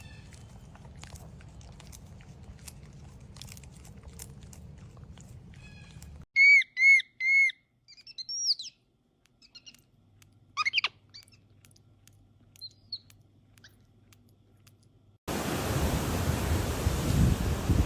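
A bird chirping: three quick, loud chirps, then a few scattered calls, after a few seconds of faint hum. Near the end a loud, steady rush of wind noise cuts in.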